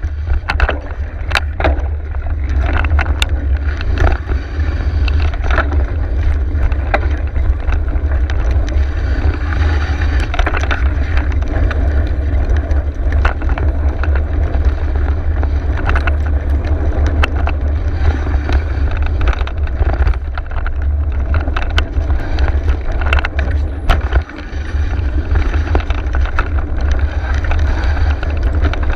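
Onboard sound of a mountain bike riding a dirt singletrack: a steady wind rumble on the camera's microphone over tyre noise, with frequent clicks and rattles as the bike bounces over the trail.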